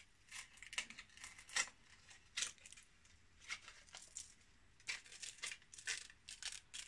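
Scattered light clicks and rustles of a thin necklace chain and its small cardboard card being handled as the necklace is worked off the card.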